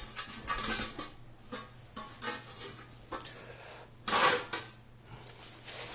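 Small metal kit parts and their packaging being handled: light clinks and rustling, with a louder rustle about four seconds in.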